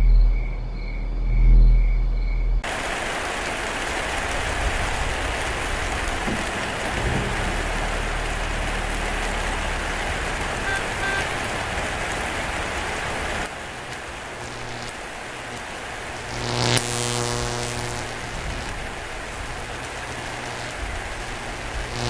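A low, swelling drone with a pulsing high tone cuts off abruptly into steady heavy rain. Later a pitched, buzzing tone swells briefly over the rain, twice.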